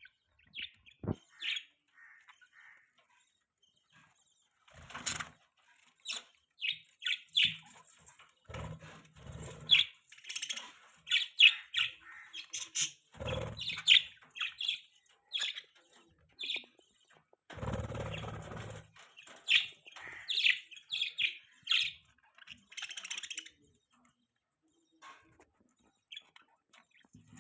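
Budgerigars chirping in short, quick bursts, broken by a few louder spells of rustling noise. The chirping thins out near the end.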